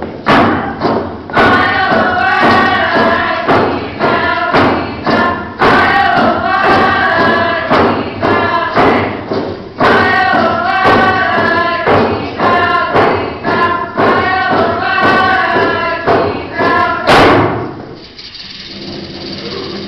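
A group singing in unison over a regular drumbeat, accompanying a Northwest Coast First Nations dance. The song and drumming end on one loud final beat about three seconds before the end, leaving quieter hall sound.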